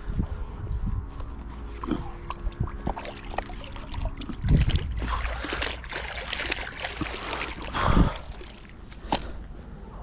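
Canal water sloshing and dripping as a recovery magnet and its haul are pulled from the water, with scattered knocks and clatter and two heavy thumps, about four and a half and eight seconds in.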